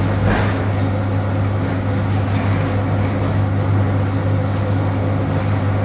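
ED9M AC electric multiple unit running at speed, heard from inside the carriage: a steady low hum over even running noise.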